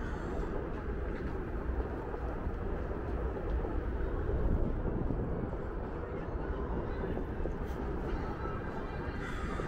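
Steady low rumble of riding noise, wind on the microphone and the tyre rolling, from a Onewheel GT electric board in motion, swelling slightly about halfway through.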